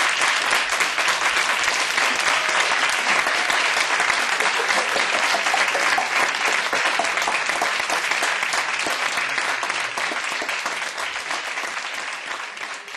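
Audience applauding, a dense and steady clapping that fades away over the last few seconds.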